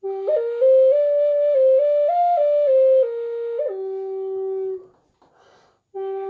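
Handmade wooden five-hole Native American-style flute (pimak) keyed in G, playing a stepwise pentatonic phrase note by note as the fingers lift off the holes in turn. It climbs and comes back down to a held low G, which ends at about five seconds. After a brief breath it starts again from the low G and steps upward.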